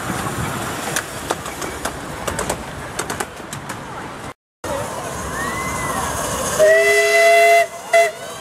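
Miniature steam locomotive running past on the track with clicking of wheels on the rails, then its steam whistle gives one loud blast of about a second, several notes sounding together as a chord, followed by a short second toot near the end.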